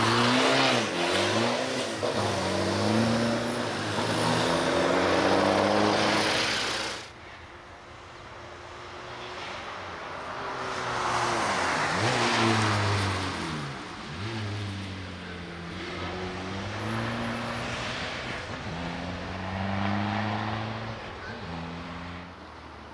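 Škoda Fabia autoslalom race car engine revving hard, pulling away from the start line and accelerating through the gears. Its pitch climbs and drops sharply at each gear change and each lift of the throttle. The sound cuts abruptly about seven seconds in, and the engine is then heard rising and falling again as the car drives the course.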